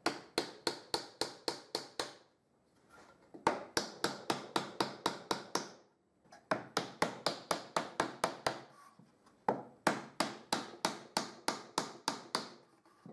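A small hammer tapping a wooden wedge, driving it between a bolt and the edge of glued boards to press the boards together in a homemade wooden bar clamp. There are four runs of quick, light taps, about five a second, with short pauses between them.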